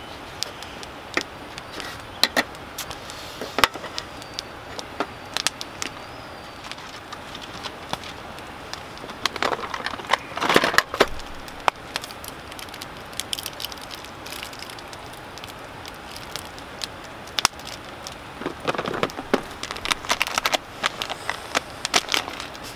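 A knife slicing marinated mackerel on a wooden cutting board, then utensils and a stainless steel cup clattering on the camp table in two louder bursts, about ten seconds in and again near the end. Scattered sharp crackles, like a campfire burning, run throughout.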